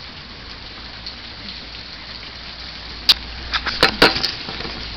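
Heavy rain falling, a steady hiss. About three seconds in comes a short cluster of sharp taps and clicks.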